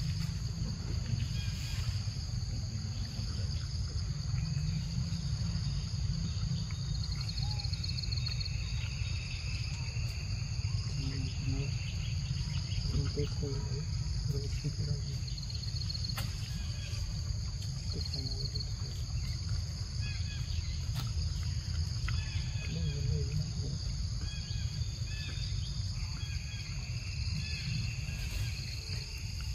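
A steady, high-pitched chorus of insects over a low, even rumble, with short chirps now and then.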